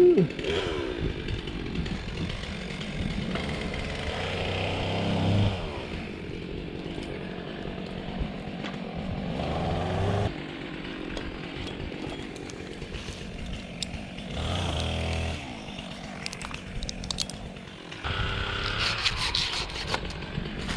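Chainsaw running, idling between about five short bursts of revving as it cuts limbs; the first is right at the start, and the last and longest runs through the final few seconds.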